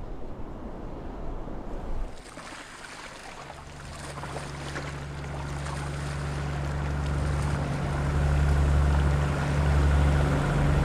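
Vehicle engine towing a boat on a trailer across wet sand, a steady low hum that grows louder as it approaches, over wind and water noise.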